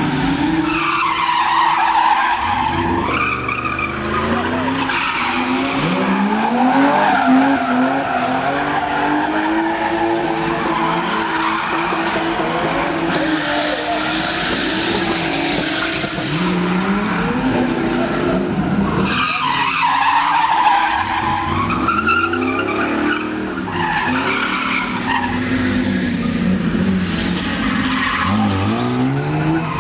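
Drift cars, a BMW E36 among them, sliding sideways past the course with their engines revving up and down over and over and their tyres squealing and skidding.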